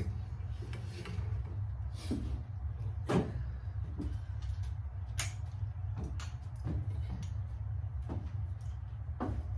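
Scattered knocks, clicks and clunks of fishing gear being handled and moved about in a pickup truck bed, with a sharper knock about three seconds in, over a steady low hum.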